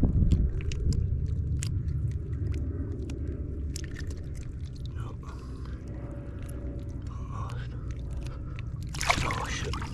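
Low rumbling handling noise with scattered small clicks and scrapes as a fly hook is worked by hand out of a hooked fish's mouth in shallow water. A short, louder splash of water comes about nine seconds in.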